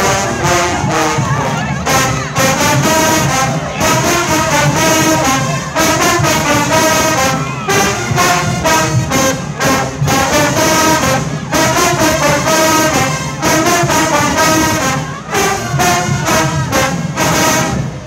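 Marching band brass section, trombones and trumpets, playing a loud tune over a steady drum beat. The music stops right at the end.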